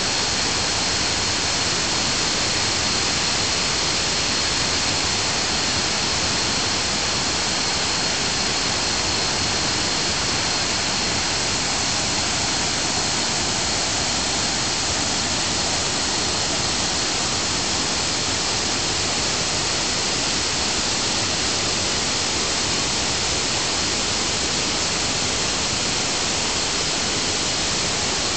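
Water falling at Mae Ya waterfall: a steady, unbroken rush of noise, with a thin steady high tone running through it.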